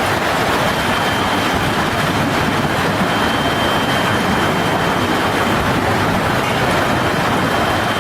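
Steady, loud roar of a severe storm's wind and driving rain, unbroken throughout, with a faint high steady whistle over it.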